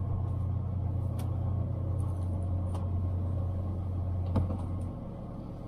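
Semi truck's diesel engine idling with a steady low rumble. A few light knocks and one sharper thump about four seconds in come from someone climbing the steps up into the sleeper bunk.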